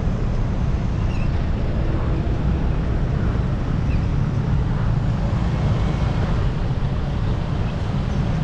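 Steady wind rushing over an action camera's microphone while cycling, a low rumble, with road traffic mixed in underneath.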